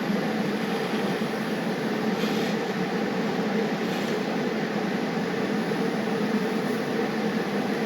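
Gas welding/brazing torch flame burning with a steady, even hiss, heating the joint to braze a nut onto a clamp.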